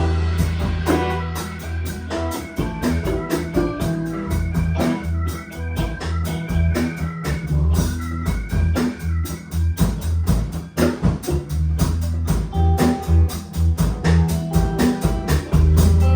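A band playing an instrumental passage: drums keeping a steady beat under a bass line, with an organ-toned keyboard carrying the melody.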